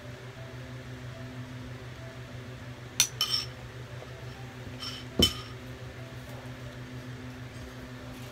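A metal spoon and a dish clinking as they are set down on a table: a quick cluster of clinks about three seconds in and a single louder one about five seconds in. A steady low hum runs underneath.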